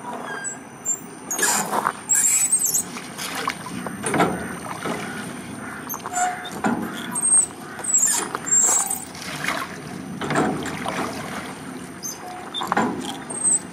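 Water in a circular river basin sloshing and splashing in irregular rushing surges, about one a second, with short high squeaks now and then.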